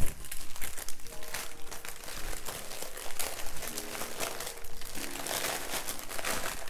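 Plastic crinkling and crackling in short irregular bursts as small clear bags of diamond-painting drills are handled on the canvas's plastic cover film.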